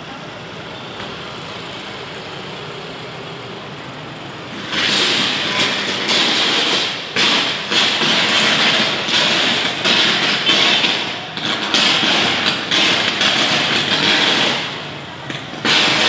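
Fallen live power cable arcing and burning: a loud, irregular crackling that starts about five seconds in, runs for about ten seconds with brief breaks, and flares up again near the end.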